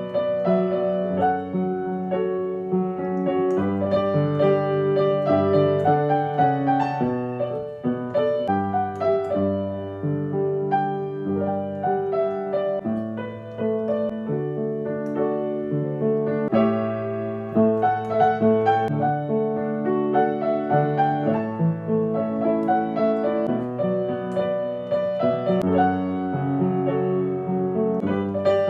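Piano played by ear in an improvised arrangement of a pop song: a moving bass line under chords and a melody, played continuously.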